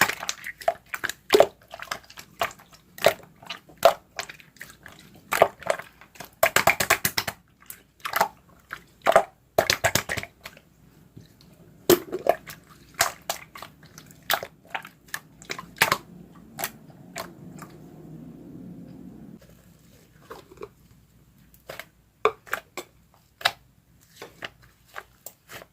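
Slime being squished, pressed and poked by hand, making many sharp irregular clicks and pops in quick clusters, with a soft low rumble for a few seconds past the middle.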